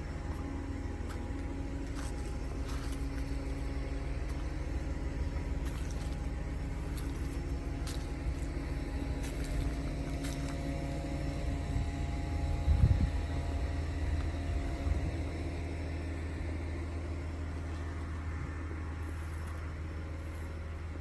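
John Deere 670GP motor grader's diesel engine running steadily under load, a low even hum with scattered light ticks. A short thump about two-thirds of the way through is the loudest moment.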